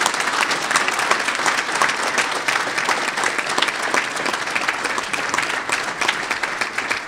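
A roomful of people applauding, many hands clapping steadily.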